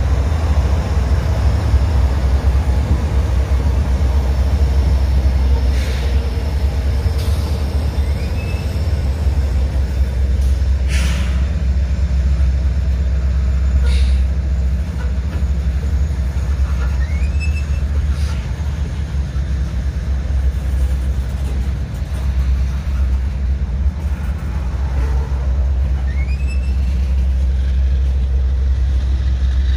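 Union Pacific freight train rolling past close by, a trailing locomotive and then covered hopper cars: a steady low rumble of wheels on the rails, with several sharp clanks and a few short high squeaks.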